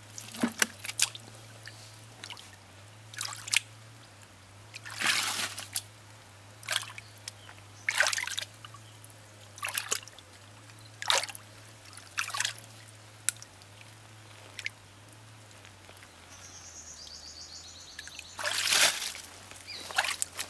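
Hands groping and scooping through shallow muddy water, giving irregular splashes and sloshes with short pauses between them.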